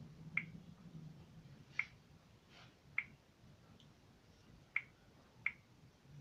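Five short, sharp clicks at uneven gaps of about a second, from tapping through an LG G4c smartphone's settings menu, over a faint low hum.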